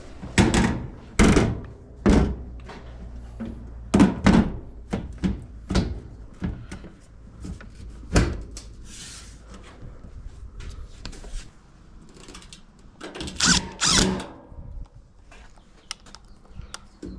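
Irregular knocks and thunks as dryer parts and panels are handled during reassembly, with a denser burst of clatter near the end.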